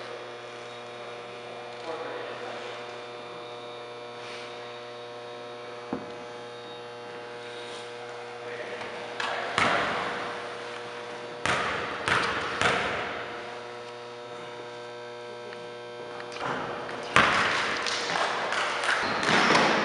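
A steady electrical hum over the gym, broken by a few separate thuds of a basketball bouncing on the hardwood court, with quicker dribbling and movement starting about three seconds before the end.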